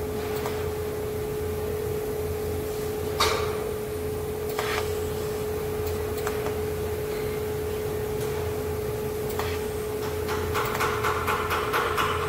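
Hammer blows on stainless-steel sheet: a few single knocks, then quick, even taps at about four a second starting near the end. A steady electrical hum runs underneath.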